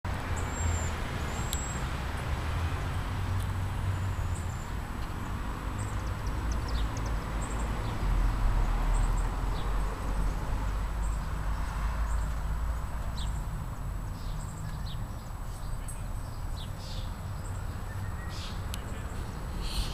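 Outdoor ambience in a town park: a steady low rumble with a wash of noise, and short high bird chirps scattered throughout.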